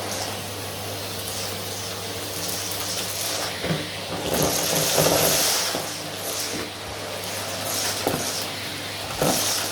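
Vacuum cleaner running with a steady motor hum, its suction hiss swelling and fading every second or so, loudest about halfway through.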